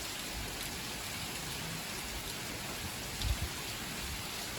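Heavy rain pouring steadily, with a brief low thump about three seconds in.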